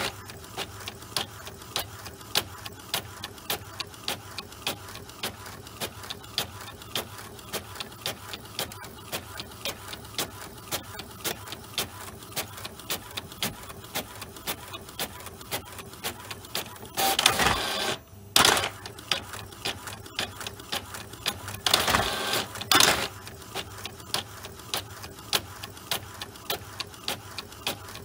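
Printer printing pages: a steady, even run of mechanical ticks, broken twice in the second half by louder noisy whirring stretches of about a second each.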